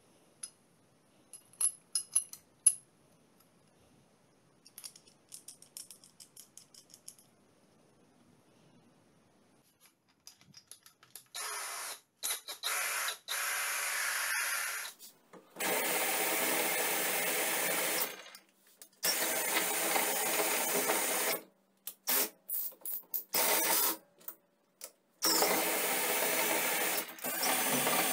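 Light metallic clicks and clinks as a cut-down hole saw and its drill-bit shaft are handled. Then, about halfway through, a cordless drill runs in repeated bursts of a few seconds, spinning the hole saw made into a drive socket. In the later, louder bursts it is cranking a bench vise's screw.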